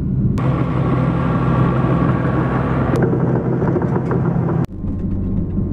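Timbco tracked feller buncher driving on its steel tracks, its diesel engine running with a steady low drone and higher whining tones over it. Near the end it cuts abruptly to a quieter, steadier engine hum.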